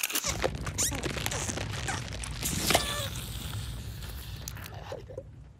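Cartoon slapstick sound effects: a dense, rapid run of clicks, crunches and rattles over a steady low rumble, with a short squeak about two and a half seconds in, fading near the end.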